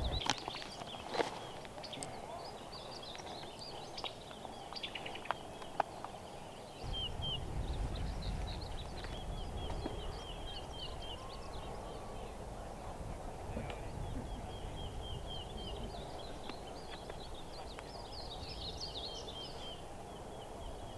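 Small birds chirping in short repeated series over outdoor ambience. A low rumble sets in about seven seconds in, and there are a few faint clicks in the first six seconds.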